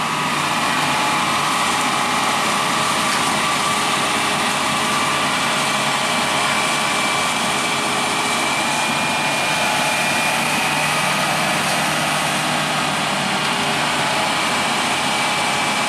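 Excavator diesel engines running steadily at a constant speed.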